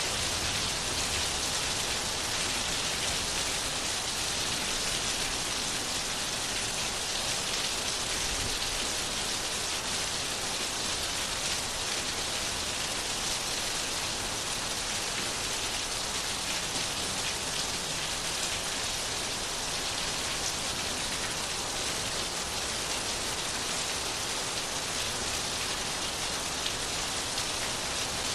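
Steady rain falling on a surface: an even hiss with the patter of drops.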